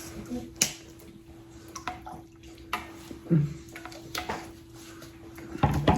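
Water being drunk at the table, with a few light clicks and knocks of a glass and dishes over a faint steady hum.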